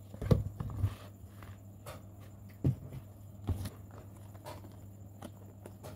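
A few scattered knocks and thuds, the firmest about a third of a second in and around two and a half and three and a half seconds in, over a faint steady low hum.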